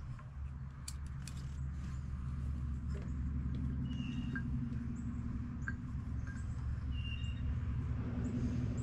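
A steady low mechanical hum, with a few faint metallic clicks about a second in as a steel anchor shackle and pin are handled. Short high bird chirps come twice, around the middle and near the end.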